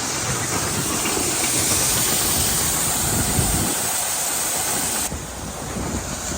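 Grain bin unloading: the unload auger running with shelled corn pouring out, a steady hissing rush over a low rumble. The hiss drops away abruptly about five seconds in.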